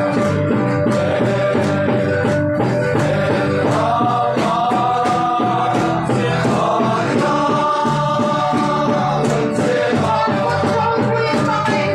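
Loud music: group singing over a steady drum beat.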